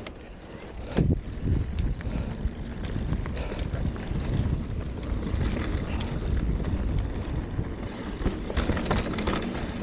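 Mountain bike rolling downhill on a dirt singletrack: tyres running over dirt and leaves, with wind buffeting the microphone and scattered knocks and rattles from the bike over rough ground, one stronger knock about a second in.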